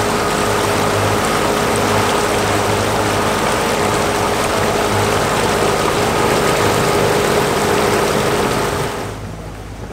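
Pontoon boat's outboard motor running steadily under way, with the rush of churned water and wake mixed in. The sound drops away suddenly near the end.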